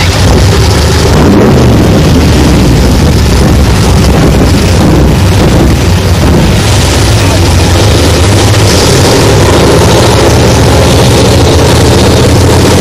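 Formula offroad buggy's engine running hard and revving on a steep dirt hill, loud throughout, its pitch rising and falling.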